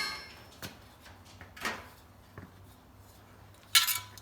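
Sheet steel being handled after hammering: the ring of a last blow dies away, a few light clicks and a scrape follow, then one sharp ringing metal clank near the end.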